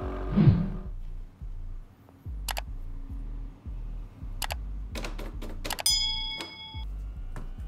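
A bench grinder's buffing wheel runs for under a second with a loud swell about half a second in, then stops. After that come a series of sharp mouse-click sound effects and a bell-like chime from a subscribe-button animation, over a low steady hum.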